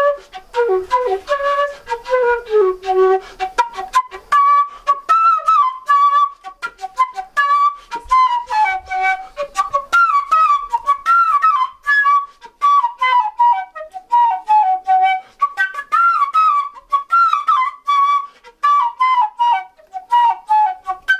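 Handmade bamboo pífano (transverse fife) playing a folk melody of short, quick notes with little turns and ornaments, starting in a low register and moving up to a higher one after about three seconds.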